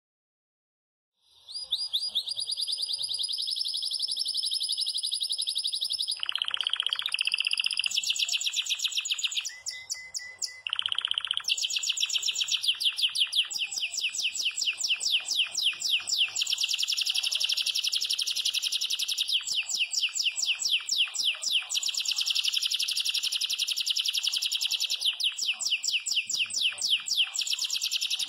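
Belgian canary (domestic canary) in full song: a long, continuous run of rapid, high trills in the bell-like 'campainha' style, beginning about a second in. Twice in the first half it drops briefly into lower, buzzier rolls.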